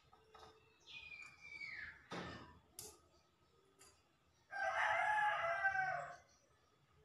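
A rooster crowing once in a long call of under two seconds, a little past halfway through; it is the loudest sound. Before it come a few sharp clicks and knocks.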